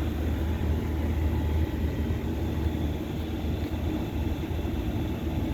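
Outdoor central air conditioner condensing units running with a steady low hum.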